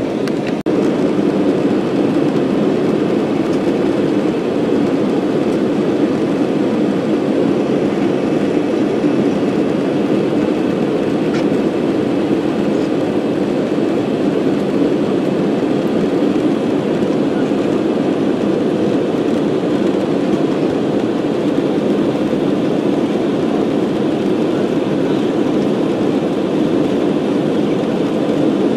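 Steady airliner cabin noise in flight: jet engines and airflow rushing past the fuselage, heard from a window seat over the wing. There is a faint knock just under a second in.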